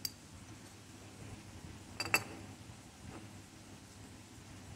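Light, sharp clicks of a small metal casting being handled and turned over on a wooden bench: one at the start, a louder pair about two seconds in and a faint one near three seconds. A faint steady hum sits underneath.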